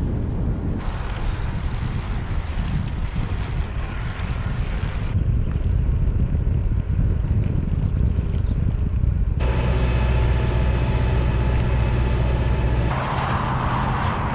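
Wind rumbling over the microphone, with road noise, while riding a bicycle; the sound changes abruptly several times. In the later part, a steady hum with several tones runs for a few seconds.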